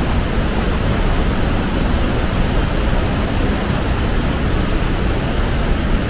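Iguazu Falls pouring down close by: a loud, steady, even rush of falling water.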